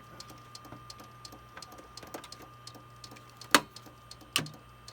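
Compaq desktop computer running with a steady hum and a faint, irregular clicking a few times a second. Two louder clicks stand out about three and a half seconds in and again about a second later.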